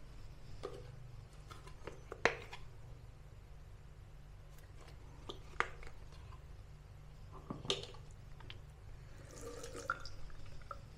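A few scattered light clicks and taps over a low steady hum.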